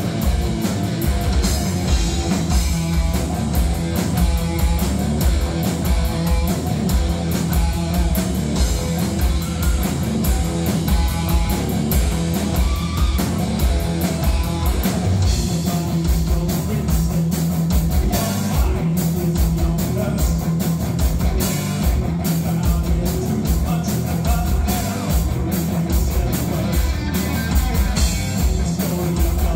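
Live rock band playing: electric guitar and bass guitar over a steady kick-drum beat on a drum kit, with a singer's voice.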